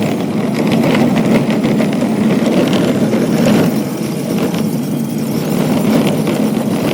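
A motor engine running steadily, with scattered clicks and knocks over it.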